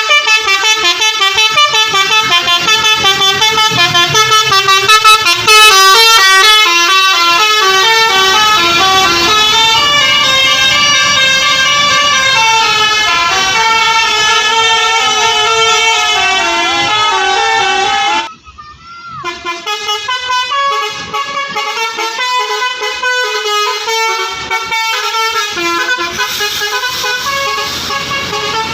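Telolet bus horn playing a fast stepping melody of several tones sounding together. About two-thirds of the way through it breaks off sharply, then starts again with another tune.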